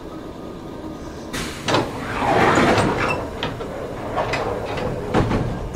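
Nankai 6000-series train's sliding passenger doors working: a sudden hiss about a second in, a loud rush of movement, then several knocks as the doors run and stop.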